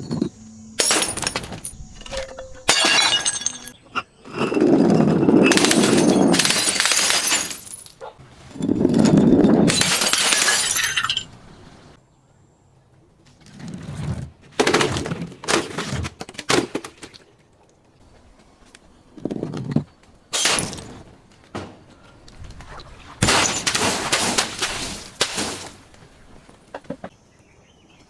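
Glass bottles being smashed again and again: repeated sharp crashes of shattering glass, several of them drawn out for about two seconds, with quieter knocks and clinks between.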